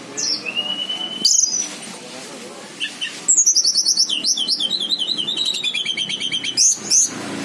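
Tledekan gunung songbird singing: a held whistle, then a few short calls, and about three seconds in a long, rapid trill that slides down in pitch over about three seconds.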